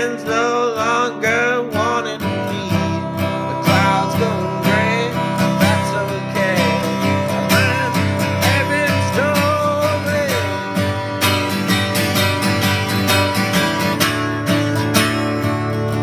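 Music: a strummed acoustic guitar in a country style, with a wavering melody line above it.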